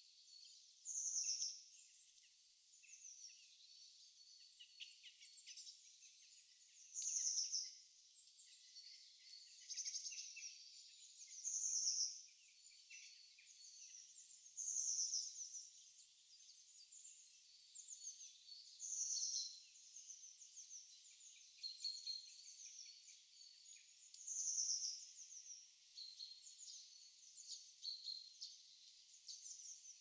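Songbirds singing on a winter morning: one bird repeats a short, bright, high song phrase six times, about every four to five seconds, over a steady scatter of fainter chirps and twitters from other birds.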